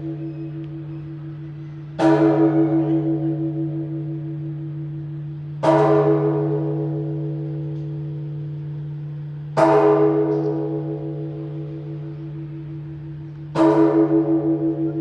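Large church bell of Phát Diệm Stone Cathedral tolling slowly: four strikes about four seconds apart. Each strike rings on with a wavering, pulsing tone over a deep hum and fades slowly until the next.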